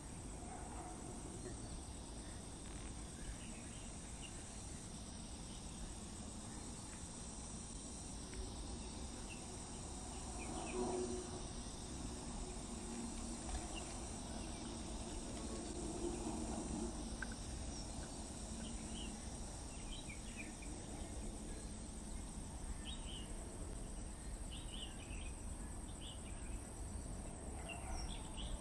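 Steady high-pitched drone of insects, with a few faint short chirps in the second half.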